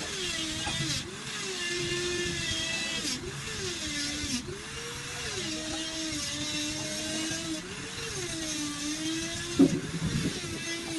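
A motor running with a steady whine whose pitch sags and recovers again and again, with a sharp knock about ten seconds in.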